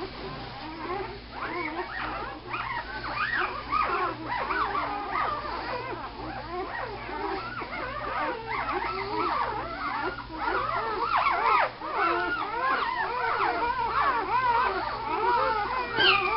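A litter of young puppies whimpering together: many overlapping high, wavering cries that rise and fall, one after another without a break.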